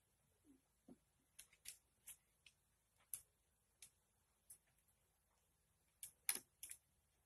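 Near silence broken by about a dozen faint, short clicks and ticks at irregular intervals, the loudest a close cluster about six seconds in.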